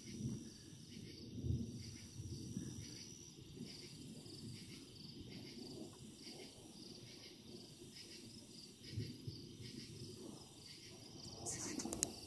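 Crickets chirping in an even, pulsing rhythm over a faint low rumble, with a couple of soft low swells.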